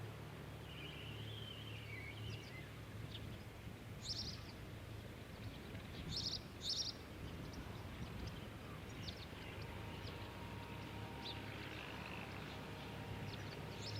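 Birds chirping faintly: a wavering call early on, then a few short high chirps, over a steady low hum.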